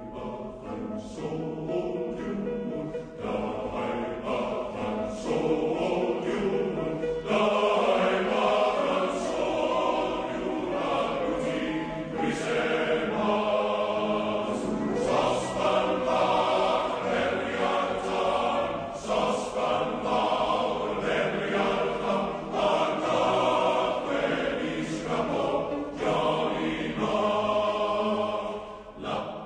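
Background music of a choir singing, fading out at the end.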